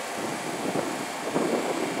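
Bombardier R62A subway train rolling slowly and coming to a stop, a steady rumble of its wheels and running gear.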